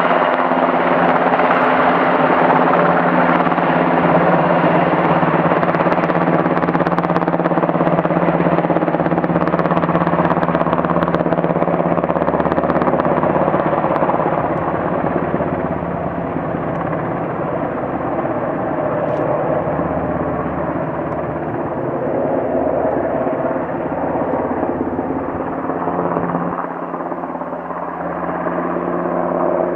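UH-60 Black Hawk helicopter, with its twin turboshaft engines and rotor, running steadily as it hovers low over water with a slung bucket and then flies off. The steady rotor and turbine noise becomes a little quieter from about halfway through as it moves away.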